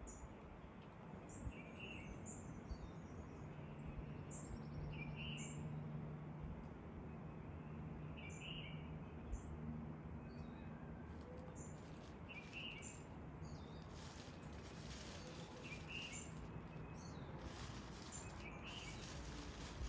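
Faint background hiss with a bird giving short chirps, repeated every second or two.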